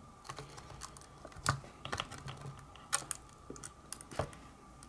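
Scattered light clicks and taps from fingers handling the opened Logitech Squeezebox Boom's display module and plastic housing, a few irregular clicks spaced roughly half a second to a second apart.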